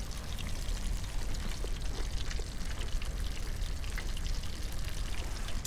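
Battered fish frying in hot oil: a steady crackling sizzle, with a low rumble underneath.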